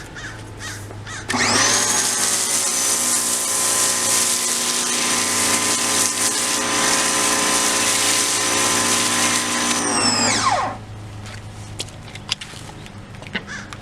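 RYOBI 1600 electric pressure washer's motor-driven pump starting up when the trigger is pulled and running steadily for about nine seconds while spraying through a foam lance. It then stops, its whine falling in pitch as the motor winds down.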